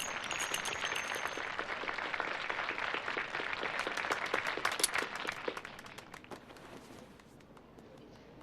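Spectators applauding: dense clapping that thins out and fades away about six seconds in.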